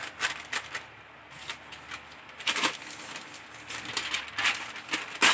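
Aluminium foil crinkling and rustling as it is pulled and pressed over a baking tray, in irregular crackles with a few louder crinkles in the second half.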